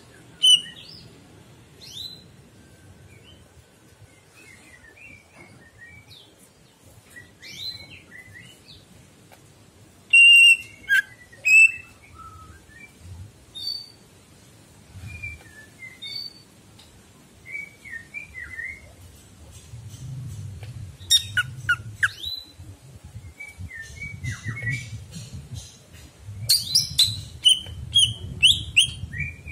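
Cucak ijo (greater green leafbird) singing a varied string of short chirps and whistles, with louder bursts of song about a third of the way in and again near the end.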